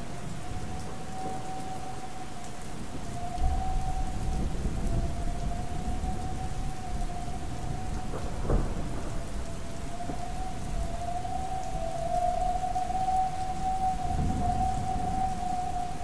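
One long held note from a Synth One synthesizer imitating a distant train horn, wavering slightly in pitch. It plays over steady rain and rolling thunder, with a sharp thunderclap about eight and a half seconds in.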